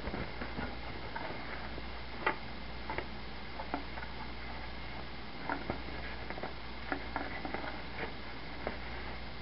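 Scattered light clicks and taps from handling the packing material and box of a PC power supply while unpacking it.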